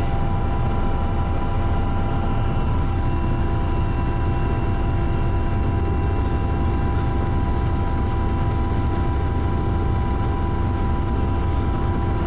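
Helicopter in flight heard from inside the cabin: a steady low rotor drone with a constant engine whine above it.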